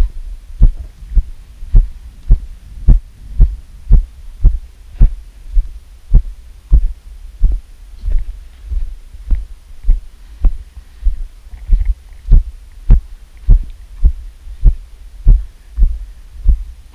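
Walking footsteps as low, even thuds, a little under two a second, carried through a body-worn GoPro camera.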